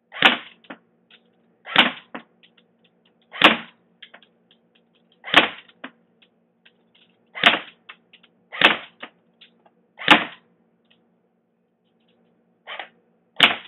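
JG G36C airsoft electric rifle firing single shots on semi-automatic: about nine sharp shots spaced one to two seconds apart, one of them weaker near the end.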